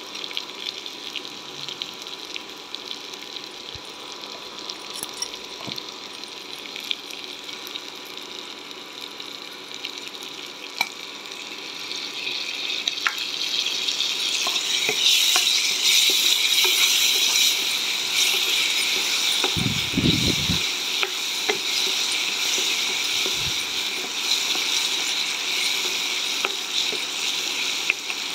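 Green chillies sizzling in oil in a nonstick pan, the sizzle growing clearly louder a little before the middle and staying loud, with scattered clicks of a wooden spatula against the pan and one low thump past the middle.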